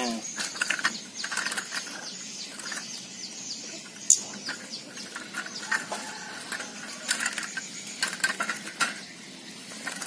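Irregular clinking and rattling of a thin-wire bird cage as hands reach in and grab a small bird, with its wings fluttering against the bars. One sharper metallic click stands out about four seconds in.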